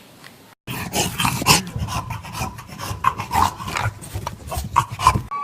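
A dog making rough, irregular rasping and scuffling noises, starting about half a second in.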